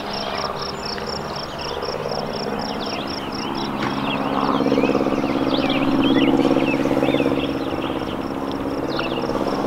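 An engine hum passing by, swelling to its loudest about six seconds in and then fading. Under it, an insect chirps in a steady pulse, a few times a second, and birds chirp.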